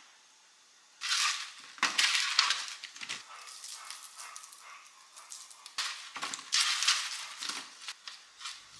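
Near silence for about a second, then irregular bursts of dry rattling and crinkling: seasoning shaken from a shaker over cubed potatoes, and hands tossing the potatoes on parchment paper in a metal sheet pan.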